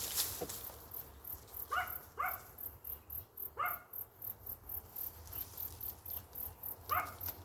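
A dog gives four short yips, each dropping sharply in pitch: two close together about two seconds in, one near the middle and one near the end. Behind them, insects keep up a steady, very high-pitched chirping at about four pulses a second.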